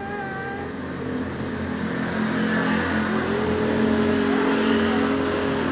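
Electric angle grinder running steadily, its motor pitch rising about three seconds in, while it cuts a ring off a swollen finger.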